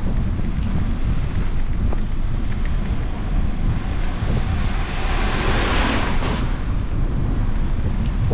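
Wind buffeting the microphone of a moving bicycle, a steady heavy low rumble. Around the middle a broad hiss swells for about two seconds and then drops away.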